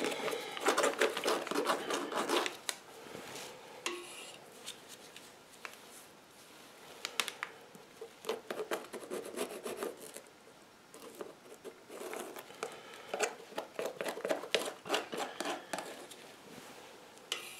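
A wooden tongue depressor scraping and smearing contact cement over a rubber boot sole, with the rubbing and handling of the boot in gloved hands. The strokes come irregularly, in spells, busiest in the first couple of seconds and again in the second half.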